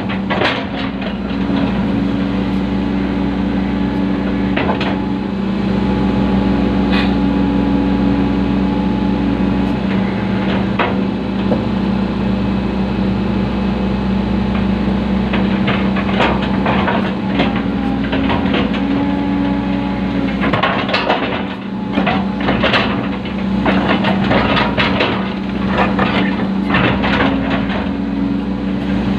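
Excavator's diesel engine running steadily under load while its bucket digs out buried iron, with repeated clanks and scraping knocks that come thick and fast about two-thirds of the way through.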